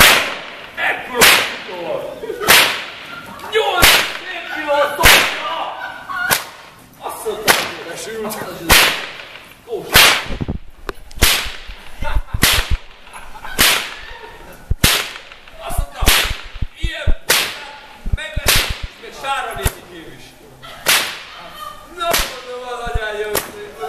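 Hungarian herdsman's whip (karikás) cracking over and over in a steady rhythm, one sharp crack roughly every second and a bit, with a slightly longer pause about twenty seconds in.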